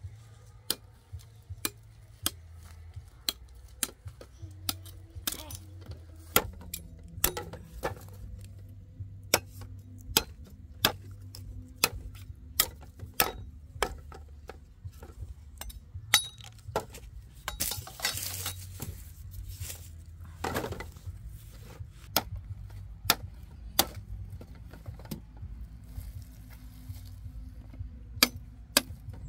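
Machete blade striking sugarcane stalks: a run of sharp, irregular chops and knocks, about one or two a second, with a couple of longer scraping rasps partway through.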